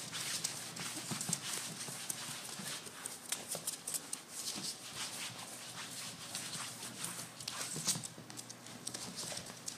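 Bull terrier puppy's claws clicking and pattering irregularly on a hardwood floor as it runs about.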